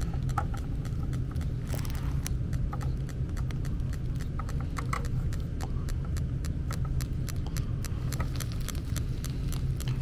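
Electronic combustible-gas leak detector ticking fast and irregularly, several clicks a second, picking up gas at a leaking gas-line fitting. A steady low hum from the running gas furnace sits underneath.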